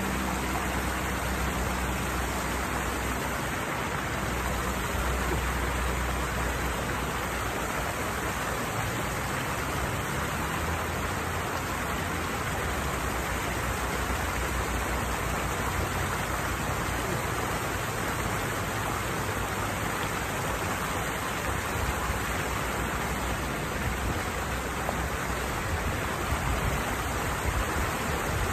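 Water falling steadily over a small cascade or weir, an even rushing that does not change.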